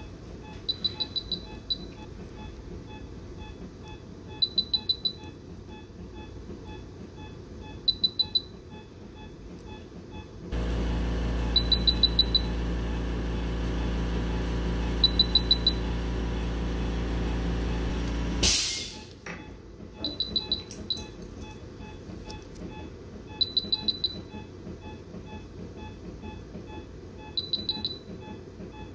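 Electronic beeping in quick bursts of four or five high beeps, repeating every three to four seconds over fainter regular pulsed tones, typical of an anaesthesia patient monitor. From about ten seconds in, a motor-driven machine runs with a steady hum for about eight seconds, then cuts off with a short loud hiss.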